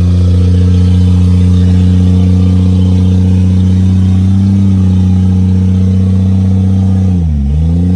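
Off-road mud truck's engine running loud and steady at held revs. The revs dip briefly about seven seconds in and then pick up again.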